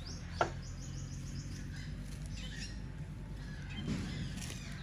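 Birds chirping, with one short, sharp call sliding down in pitch about half a second in.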